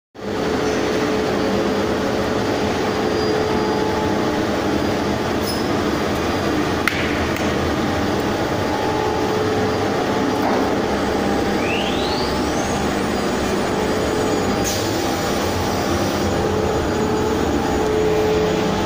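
Steady machinery noise from a Weeke Venture CNC machining center running, a constant hum with a held tone. A short rising whine comes about two-thirds of the way through, and a couple of sharp clicks come near the middle and later.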